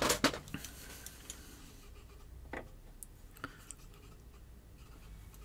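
Faint scraping and scattered light clicks of a hand tool working a bolt loose on the Roland TR-808's top panel, with a few sharper clicks in the first half-second.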